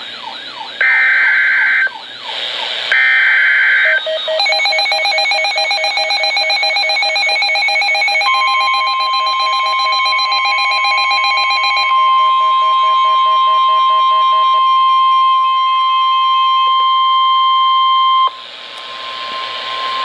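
Midland weather alert radio sounding a NOAA Weather Radio alert. Two short buzzy data bursts of the SAME header come first. Then the radio's pulsing alarm tones start, joined about 8 s in by the steady 1050 Hz warning alert tone, which sounds for about ten seconds and cuts off suddenly.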